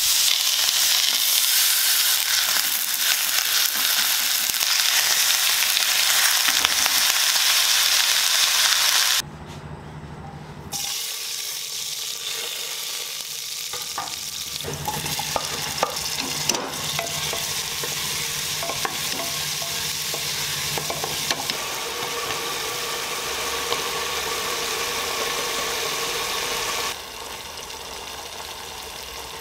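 Pork chop sizzling loudly as it sears in a hot iron wok, cutting off sharply about nine seconds in. After a short gap, onions frying more quietly in oil in a pressure cooker pot, with scattered clinks of a spoon stirring.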